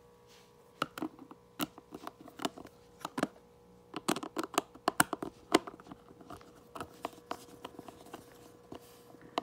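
Irregular clicks and knocks of a plastic baby activity toy being handled and tapped, with a faint steady tone underneath; the clicks are thickest a few seconds in.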